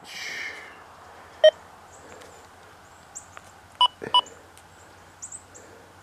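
XP Deus II metal detector's remote control giving short electronic beeps as its buttons are pressed to change settings. There is one lower beep about a second and a half in, then two quick higher beeps near the middle.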